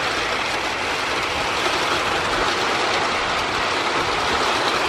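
Heavy rain pouring down as a steady, even hiss of a thunderstorm downpour.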